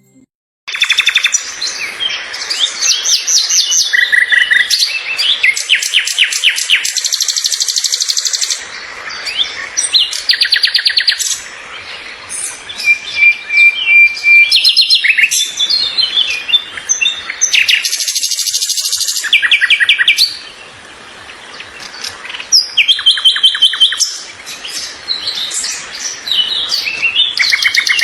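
Songbird singing: fast, high-pitched trills, rapid runs of repeated notes and chirps in varied phrases, with a few short pauses, starting just under a second in.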